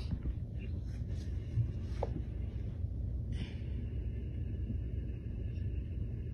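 Steady low rumble of background noise, with a few faint breaths.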